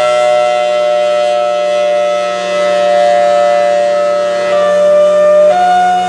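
Federal Signal Thunderbolt 1003 outdoor warning siren sounding a steady two-tone chord, its level rising and falling as the horn rotates. About five and a half seconds in, it switches to alternating high and low tones (hi-lo).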